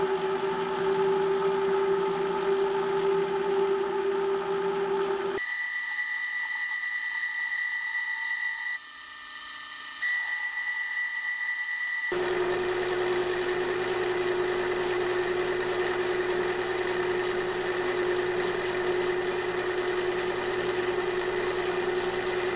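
Benchtop lathe running while a cut-knurling tool cuts a knurl into a hollow iron pipe: a steady motor whine over the noise of cutting. The sound changes abruptly about five seconds in to a higher steady whine with less low end, then returns to the first sound about twelve seconds in.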